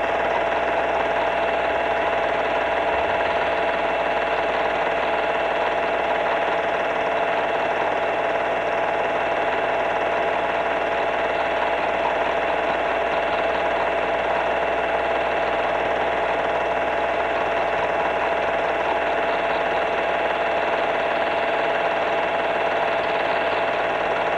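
Film projector running steadily behind silent home-movie film, a constant mechanical whirr and clatter with a steady hum.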